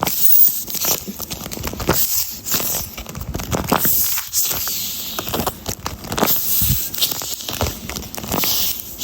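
Crinkling and crackling of a taped paper squishy being squeezed and handled, in irregular crinkles throughout.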